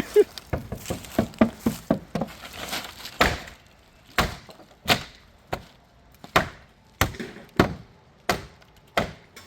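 Heavy hand-swung blows battering a hole through a wooden shed wall: quick, uneven hits with wood cracking in the first few seconds, then single strong blows at a steady pace of about three every two seconds.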